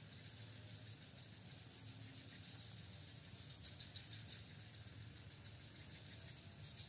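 Steady, high-pitched chorus of insects droning without a break, over a faint low background rumble.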